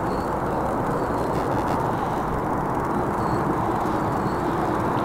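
Steady outdoor background rumble with no clear single source, and a few faint, short high chirps.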